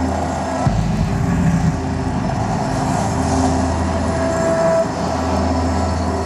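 Loud, steady electronic drone from a light-projection show's soundtrack: a deep low hum under several held tones. The texture shifts abruptly about a second in, and a higher held tone cuts off sharply near the end.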